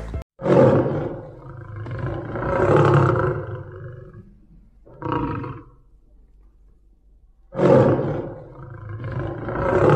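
A man roaring with his voice: a long roar that swells to a peak and fades, a short one about five seconds in, and a second long swelling roar starting near the end.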